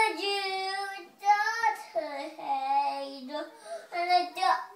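A toddler singing without accompaniment in long, drawn-out notes: one held note at the start, a short break about a second in, then a lower note held for about a second before shorter phrases.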